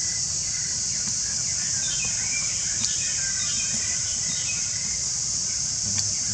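Steady high-pitched drone of an insect chorus, with small birds giving several short runs of chirping calls and a couple of faint clicks.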